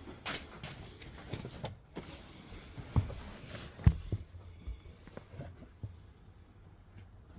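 Scattered knocks and clicks of handling, with two sharper thumps about three and four seconds in, over a faint low rumble.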